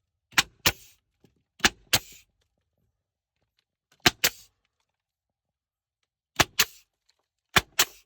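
Pneumatic nail gun firing nails into wooden lattice, five times at irregular intervals; each shot is two quick sharp snaps, the second followed by a short hiss of air.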